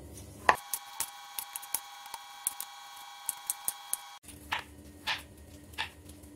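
Kitchen knife chopping a block of tempeh into cubes on a plastic cutting board: a string of irregular taps and clicks as the blade meets the board.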